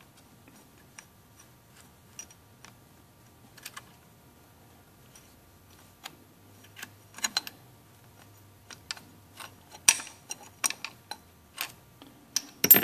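Light metallic clicks and clinks from handling a homemade angle-iron rail and valve spring compressor on a KA24DE cylinder head. They are sparse at first, come more often from about six seconds in, and are loudest near the end.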